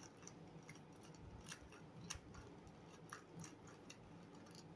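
Faint, irregular clicking of a 2x2 Rubik's cube's plastic layers being turned by hand, roughly two clicks a second, as the cube is being solved.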